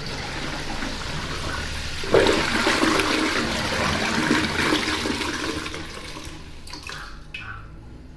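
Concealed push-button cistern flushing a stainless steel toilet pan: a rush of water that surges about two seconds in, then dies away near the end.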